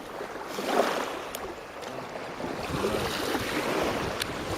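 Small lake waves washing onto a sandy beach, with wind buffeting the microphone.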